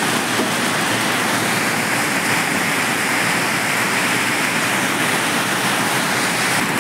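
Heavy hailstorm: a dense, steady rush of hailstones pelting the ground, trees and corrugated tin roofs, with strong wind.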